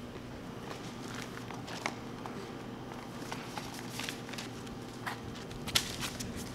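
Scuffling footsteps and body movement on a concrete floor with scattered sharp clicks, and a paper envelope crinkling as it is pulled between two people, over a steady low hum.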